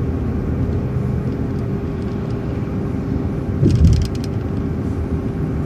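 Transit bus driving: a steady low rumble of engine and road with a constant whine, and a brief rattling knock about two thirds of the way through.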